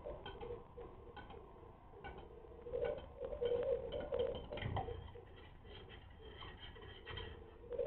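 Male grouse displaying: a run of dry clicks throughout, with a burst of low calls about three seconds in and a soft thump just before five seconds.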